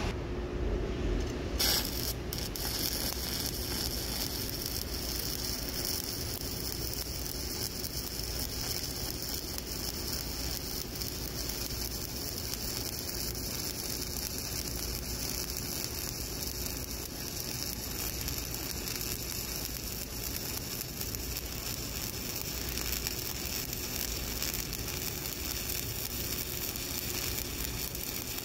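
Shielded metal arc (stick) welding with an E7018 electrode, the arc sizzling steadily as a cover pass is run along a horizontal groove weld. The arc is struck about two seconds in.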